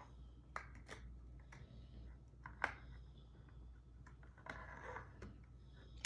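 Faint, irregular clicks and knocks of large plastic toy building blocks being handled and pressed together onto a stack.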